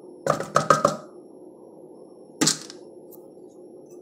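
Sharp plastic knocks from a pill crusher being tapped to empty crushed pill powder into a bowl of dry dog kibble: four quick knocks in the first second, then a single louder one about two and a half seconds in.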